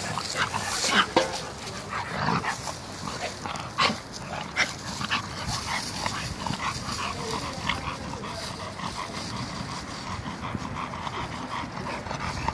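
Two dogs playing and scuffling through dry leaves, with short yips and whimpers scattered among the rustling.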